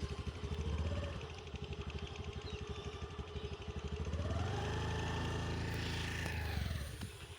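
A motor vehicle's engine running past with a rapid pulsing beat. Its pitch rises about four seconds in, holds, and drops off near the end as the engine revs and eases.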